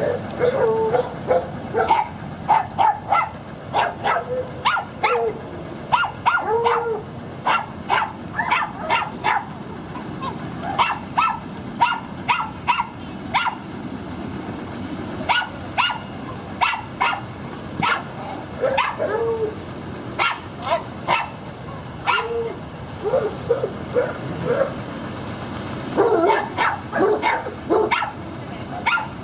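A dog barking repeatedly in quick runs of short barks, with brief pauses between the runs.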